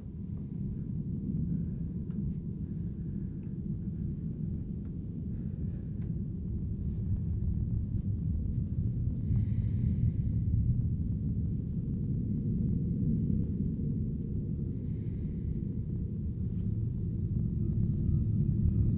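A sleeping man breathing, with two long breaths at about ten and fifteen seconds in, over a low rumbling drone that slowly grows louder.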